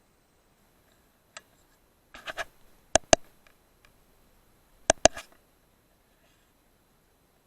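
Sharp mechanical clicks in near silence: a lone click, a short rattle of clicks, then two pairs of loud, quick clicks about two seconds apart, with softer clicking after the second pair.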